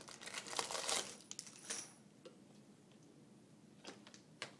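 Cardboard advent-calendar door being pried and torn open, a scratchy rustle for about the first second. Then a handful of light clicks and clinks of small plastic LEGO pieces in their bag.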